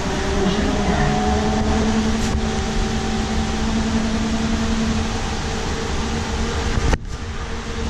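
2016 Nova Bus LFSe battery-electric bus in motion, heard from inside the cabin: steady road rumble with a few steady whining tones. A sharp click comes near the end, after which the sound is quieter.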